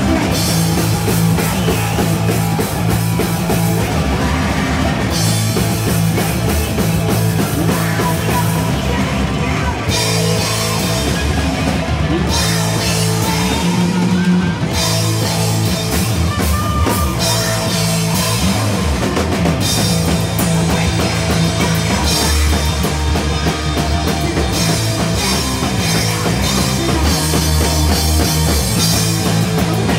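Live rock band playing loud: distorted electric guitars and a drum kit, with no break in the music.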